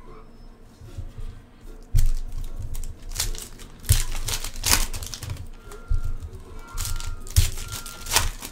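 Trading card packs being torn open by hand, the wrappers crinkling and tearing in irregular bursts between soft handling knocks.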